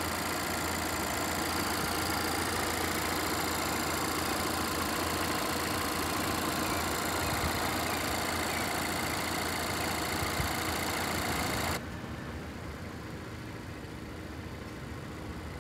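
Volvo V60 T8 Twin Engine's 2.0-litre four-cylinder petrol engine idling steadily, heard with the bonnet open. About twelve seconds in the sound drops abruptly to a fainter, duller hum.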